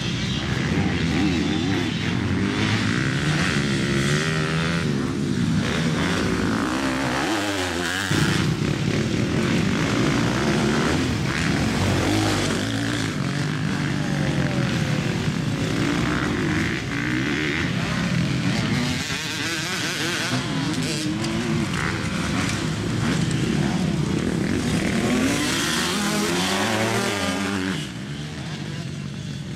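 Dirt bike engines revving up and down as the bikes accelerate out of turns on a dirt track. The pitch climbs and drops repeatedly.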